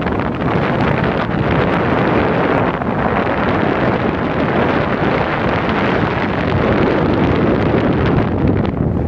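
Wind buffeting the microphone aboard a moving harbour ferry, a loud, steady rumbling rush, with the boat's running noise beneath it.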